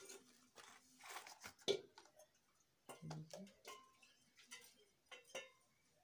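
Faint handling clicks and knocks from a set-top box's metal case and front panel being moved about, with one sharper click a little under two seconds in.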